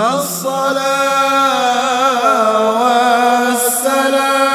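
Nazam, a devotional Islamic chant, sung unaccompanied: a long held note on a vowel that wavers through a short run about two seconds in, then settles and is held again.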